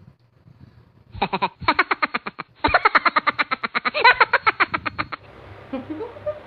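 Loud burst of laughter, a fast run of 'ha-ha' pulses starting about a second in and cutting off suddenly near five seconds.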